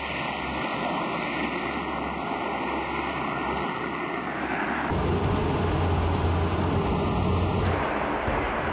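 Jet engines of Su-34 fighter-bombers running at high power on take-off and climb-out, a continuous roar. About five seconds in it grows louder, with a stronger low rumble.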